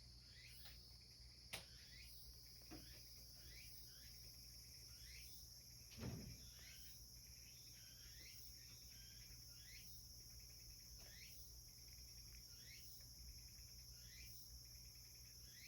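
Faint insect chirping: a steady high drone with short falling chirps repeating every second or so. A sharp click comes about a second and a half in, and a dull knock about six seconds in.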